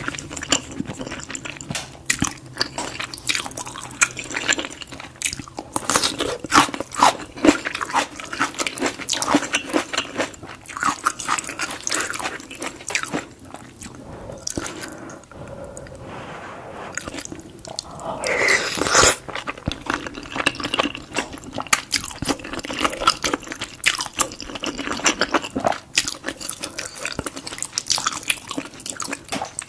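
Close-miked ASMR eating sounds of a person chewing big bites of lasagna: a steady run of wet mouth clicks and smacks, with one longer, louder stretch a little past halfway.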